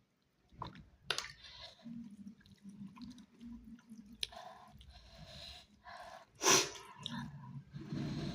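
Close-up chewing of chicken, with irregular wet mouth clicks and smacks, and one louder smack about six and a half seconds in.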